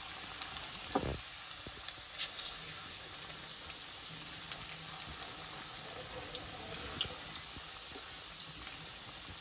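Chicken pakoras deep-frying in hot ghee: a steady sizzling hiss with scattered small pops and crackles, and one soft knock about a second in.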